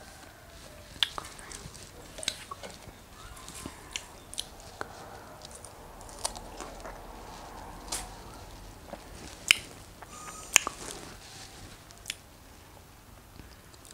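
A person biting and chewing fresh strawberries close to the microphone: scattered wet mouth clicks and smacks, with two louder clicks about two thirds of the way through.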